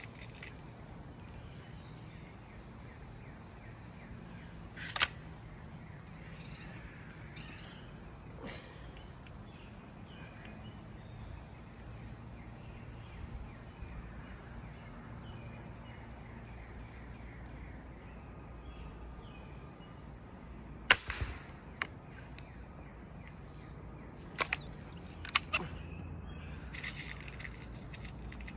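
Sharp cracks of a pellet rifle being fired: one about five seconds in, the loudest around twenty-one seconds followed by a few smaller clicks, and two more a few seconds later. Under them a bird chirps repeatedly, about twice a second.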